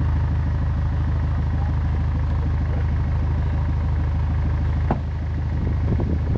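Small fishing boat's inboard engine idling steadily with an even, low hum and a fine regular pulse. A sharp click about five seconds in and a few light knocks near the end.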